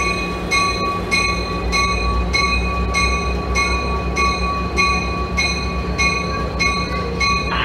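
Diesel locomotive approaching slowly with its bell ringing steadily, a little under two strokes a second, over the low rumble of the engine.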